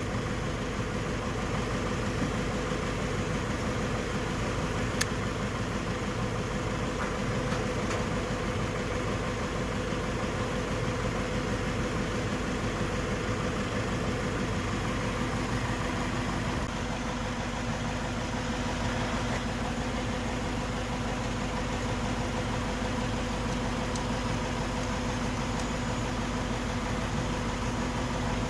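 Steady mechanical hum of a running motor or engine, even throughout, with a couple of faint clicks.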